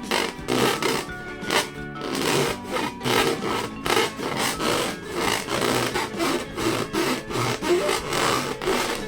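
Rubber balloons being rubbed and squeezed by hand, a steady run of rough rubbing strokes, with music playing behind.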